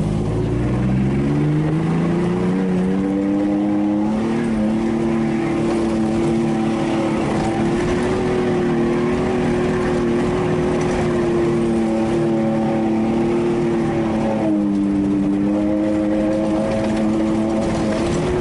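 Nissan Frontier pickup's engine heard from inside the cab while driving on dirt and sand. The revs climb over the first couple of seconds, hold high and steady, drop briefly about fourteen seconds in, then climb again near the end.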